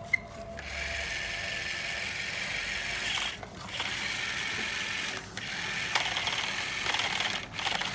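A small mechanism running with a steady rattling whir. It runs in stretches of a few seconds with brief stops about three, five and seven and a half seconds in.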